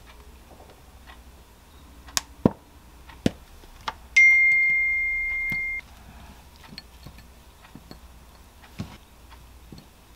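A few light clicks and taps, then a single electronic beep, one steady high tone about a second and a half long that starts about four seconds in and cuts off abruptly. Softer taps of strawberry pieces being set into a glass bowl follow.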